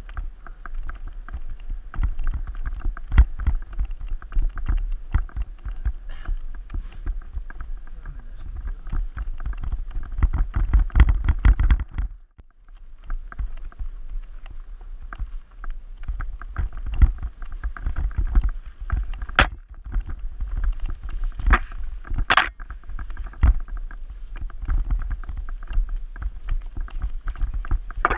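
Mountain bike rattling and clattering over rough forest singletrack, picked up by a handlebar-mounted GoPro Hero 3 in its housing: a dense, uneven stream of knocks over a low rumble. It eases off briefly near the middle, and a couple of sharp cracks stand out later.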